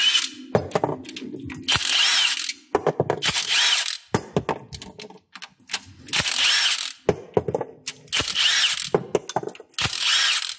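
Milwaukee M18 cordless impact gun running in about five short bursts of roughly a second each, with pauses between, as it backs out the 10 mm bolts of the engine's rear main seal housing. The bolts come out easily, being only moderately tight.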